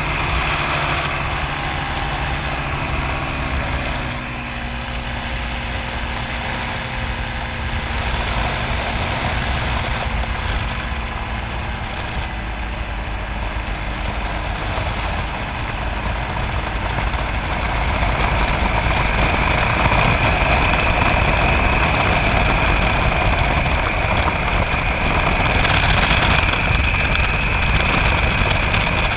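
Open-cockpit ultralight aircraft in flight: its engine running steadily under a rush of wind on the microphone. The sound grows a little louder about two-thirds of the way through.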